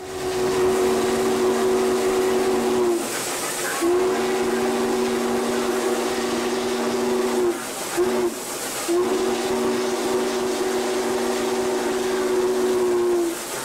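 Norfolk & Western Class J 611's steam whistle blown from the cab in the grade-crossing signal: two long blasts, one short and a final long one. Each blast is a chord of several tones, over a steady hiss of steam.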